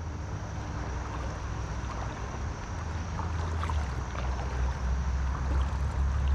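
Steady rush of river current, with a low rumble underneath.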